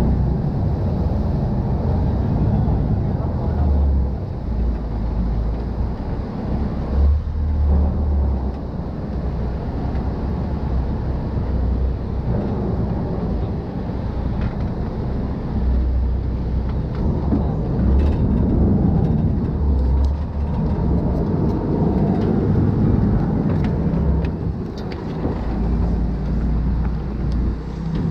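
Steady low engine rumble mixed with wind and rushing noise, swelling and easing a little now and then.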